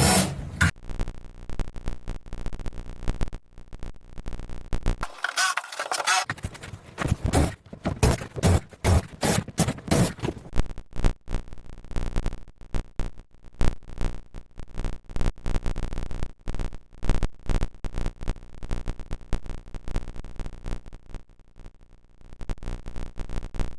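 Irregular scraping, knocking and rattling as a boat's floor panels are pried up and pulled out.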